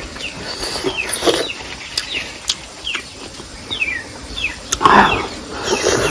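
Birds chirping repeatedly, each a short falling chirp, with a few sharp clicks and a louder short noise about five seconds in.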